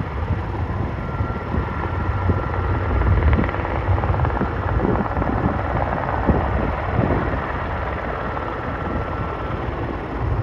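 Firefighting helicopter running steadily as it flies off with a water load, with a thin steady whine held through most of it.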